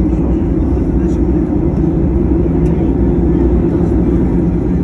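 Steady cabin noise of a Boeing 737-900 taxiing, heard from inside the cabin: its CFM56-7B jet engines humming at low taxi power over a low rumble.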